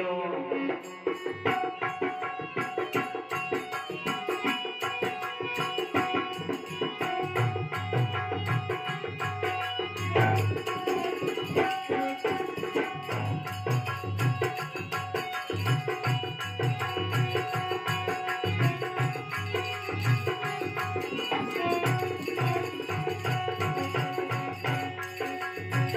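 Instrumental interlude of a Rajasthani folk devotional song: sustained melodic accompaniment, joined about seven seconds in by a rhythmic hand drum.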